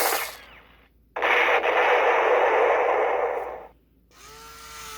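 Electronic submachine-gun fire from a G.I. Joe Accelerator Suit Duke toy's sound chip: a burst cuts off just after the start, then a longer burst of rapid fire lasting about two and a half seconds. It is followed by a quieter steady electronic hum near the end.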